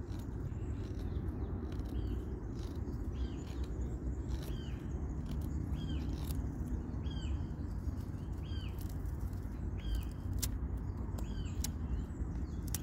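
Survival knife shaving thin curls off a dry pine stick in short scraping strokes, making a feather stick. A bird calls repeatedly with short chirps about every half second over a steady low rumble.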